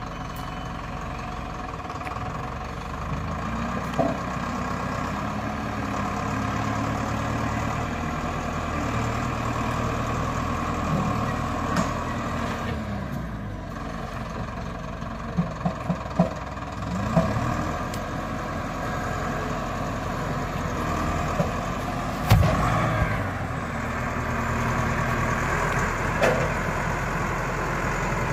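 Zetor Forterra 9641 tractor's four-cylinder diesel engine running, its pitch rising and falling repeatedly as the front loader lifts and swings a spruce log. Knocks sound from the grapple and logs: a quick run of four near the middle and one heavy thud a little after two-thirds through.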